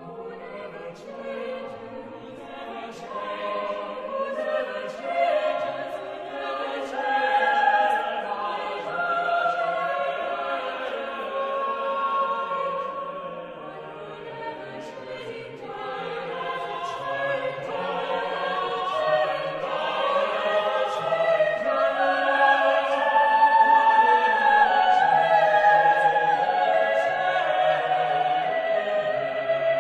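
Choir singing slow, sustained chords, the words' 's' sounds crisp above the voices. The sound dips about halfway, then swells to its loudest about three quarters through.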